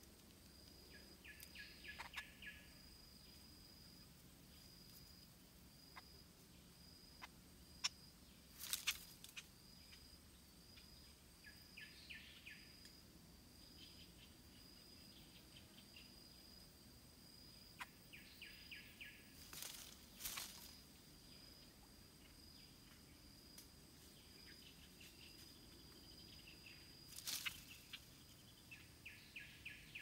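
Faint tropical woodland ambience. An insect keeps up a steady, high, pulsing buzz, and a bird gives a short rapid series of notes four times. A few brief sharp clicks or rustles come in between.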